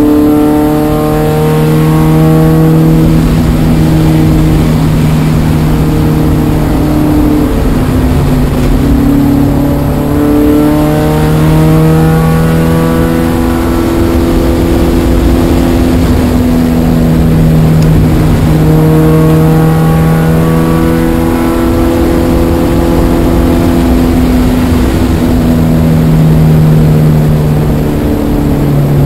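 Spec Miata's four-cylinder engine running hard on track. Its note climbs with acceleration and drops back at gear changes and lifts, several times over.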